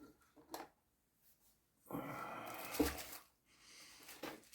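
Small electric motor of an HO-scale model locomotive whirring steadily for about a second and a half, starting about two seconds in, with a click near its end.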